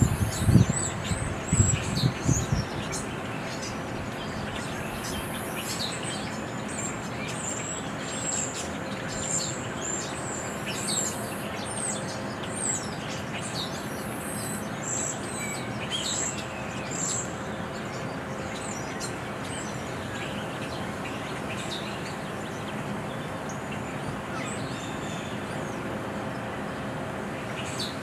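Small songbirds chirping and tweeting, many short high calls scattered throughout, over a steady outdoor background hiss and hum. In the first couple of seconds there are several low thumps, the loudest sounds here.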